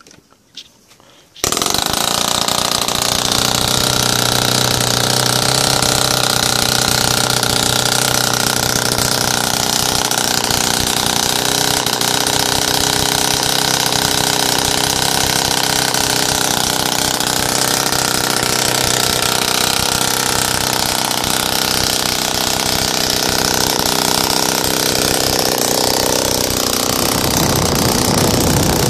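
RCS 140 model-aircraft engine on CH CDI ignition, spinning a 16x8 propeller, starts suddenly about a second and a half in and runs at a steady, loud high idle. It has no tuning pipe, so it runs noisy and does not idle well without the back pressure. Its note changes near the end.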